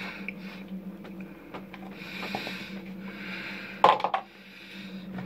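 Slow breaths through the nose, then a short, loud burst about four seconds in: spitting tobacco juice from a dip of snuff into a plastic spit bottle.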